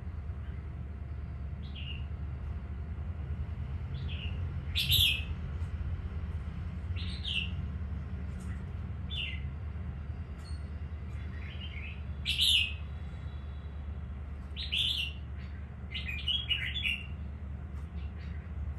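Caged red-whiskered bulbuls calling: short separate chirps every second or two, the loudest about five and twelve seconds in, over a steady low rumble.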